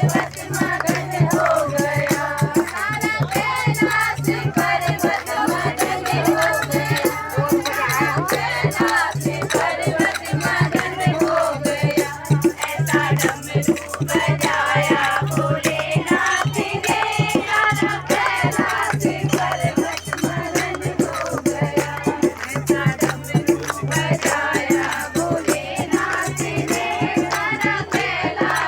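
Folk music with singing voices over a constant fast shaking rattle and a recurring low note.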